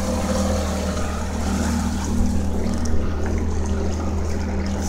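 Motorboat engine running with a steady low drone.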